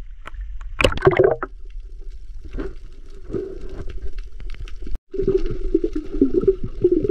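Muffled water sounds picked up through an action camera's waterproof housing at and below the surface: sloshing and bubbling with small crackles, a louder splash about a second in. The sound cuts out for an instant about five seconds in and returns louder.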